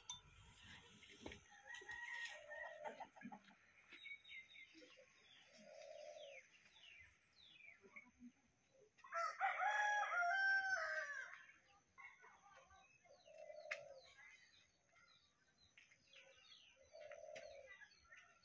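A rooster crowing once, a long call of about two and a half seconds starting about nine seconds in, the loudest sound here. Small birds chirp faintly around it.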